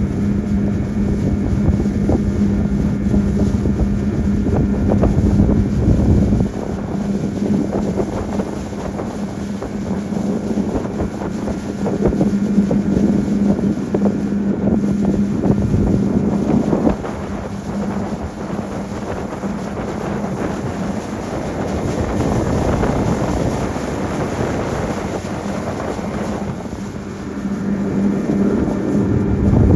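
Motorboat engine running steadily under way, a constant hum with wind buffeting the microphone.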